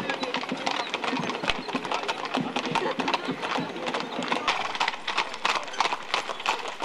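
Hooves of pairs of carriage horses clip-clopping on an asphalt road as the carriages pass, many hoofbeats overlapping in an irregular clatter.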